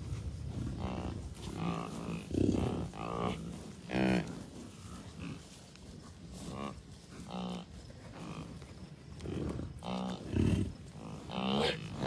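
A herd of American bison cows and calves grunting, with many short calls overlapping one another. There are about fifteen calls, fewer in the middle of the stretch and loudest near the start and near the end.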